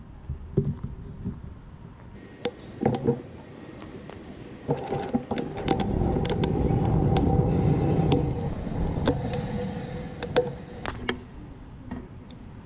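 A vehicle passing close by, swelling and then fading over about five seconds, with a steady whine and many sharp clicks and rattles.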